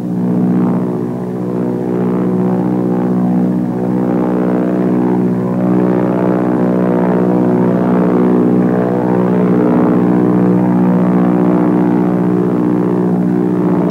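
Propeller plane engine droning steadily, swelling in over the first second and holding at a constant pitch.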